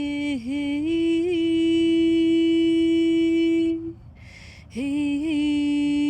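A woman's voice singing long held notes without words, sliding up into each note, as meditative toning. She breaks for a breath about four seconds in, then takes up the held note again.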